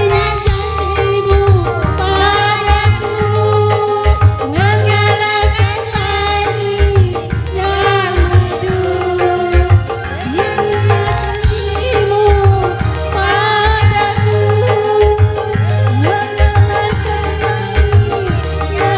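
Dangdut koplo music played live: kendang hand drums and a deep, steady bass beat under a melody whose notes bend and waver, with singing.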